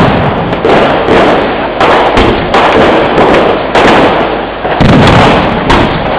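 Vedikkettu fireworks display: aerial shells going off in a rapid barrage of loud, overlapping bangs, about one or two a second, with rumble between them.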